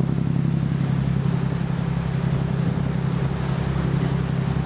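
Steady low drone of a boat's engine, one unchanging hum, under a constant wash of wind and water noise.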